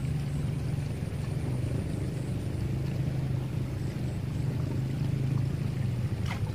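Steady low motor drone, an even hum that holds its pitch throughout.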